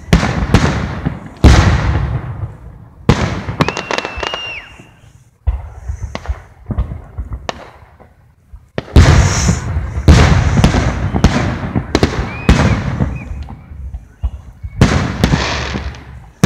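Aerial fireworks shells bursting one after another in sharp booms, each trailing off. The bursts are spaced out at first, then come thick and fast from about nine to thirteen seconds in, and again near the end.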